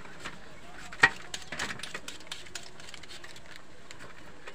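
Raw green mangoes being cut and handled over a steel plate: one sharp click about a second in, with a few lighter clicks and taps.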